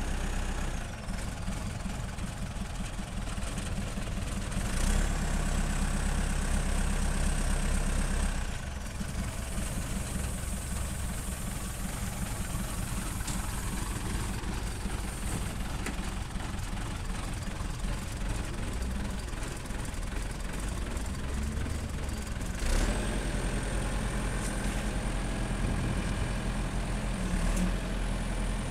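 Caterpillar backhoe loader's diesel engine running, revving up about five seconds in and again near the end, with a high whine coming in each time it revs.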